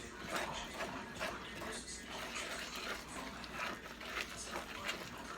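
Spoon stirring wet hush puppy batter in a mixing bowl: a run of short, uneven strokes.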